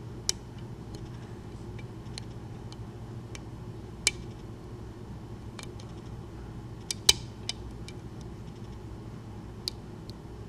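Lock picking in a pin-tumbler mortise cylinder with spool pins: a metal pick and tension wrench making scattered sharp clicks at irregular intervals as the pins are worked and set, the loudest about 4 and 7 seconds in, over a low steady hum.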